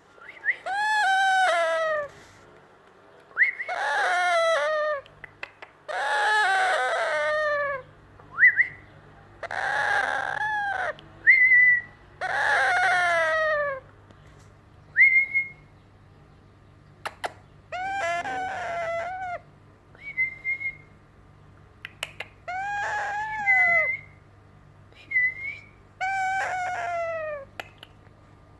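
Young yellow Indian ringneck parakeet giving eight long, falling, cat-like moaning calls, each about a second and a half long, with short rising whistles in between.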